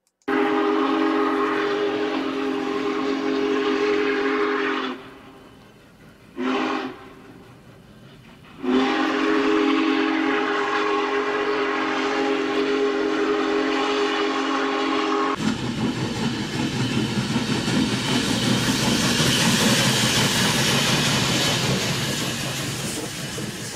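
Steam locomotive chime whistle sounding several notes together: a long blast, a short one about six seconds in, and another long blast. It then gives way to a loud, steady rushing noise that fades near the end.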